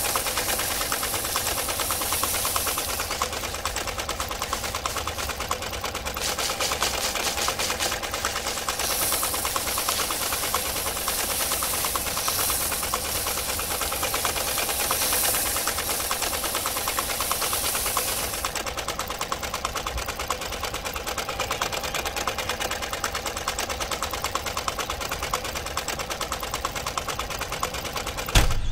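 Small electric motor driving a miniature rice thresher's drum by belt, running with a fast, steady rattle, while rice stalks held against the spinning drum add a hissing swish in stretches. The motor cuts off suddenly near the end with a thump.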